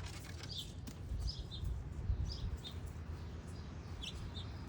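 Small birds chirping: short, high chip notes that fall slightly in pitch, repeated irregularly about twice a second, over a low steady rumble.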